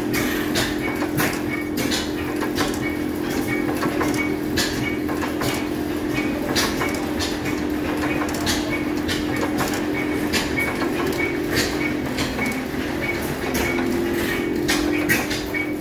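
Several old hit-and-miss stationary gas engines running together, their sharp exhaust pops and clicks overlapping at uneven intervals, about two a second, over a steady low drone.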